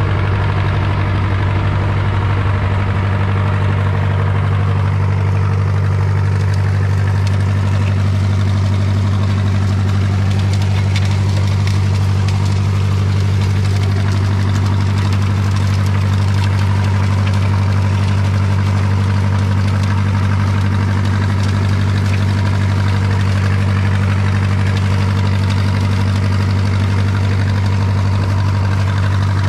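John Deere New Generation tractor engine running steadily under load while pulling a corn planter: an even, unchanging low engine hum.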